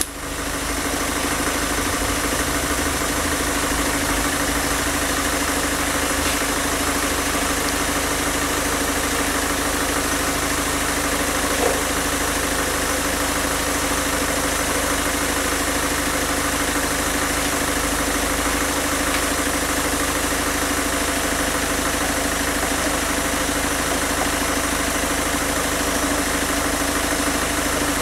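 Peugeot 1.6 HDi diesel engine idling steadily while it runs on injector cleaner fed straight into the fuel supply. The injector clatter has given way to a smoother, softer note, which the mechanic takes for the injectors being cleaned. A small click about twelve seconds in.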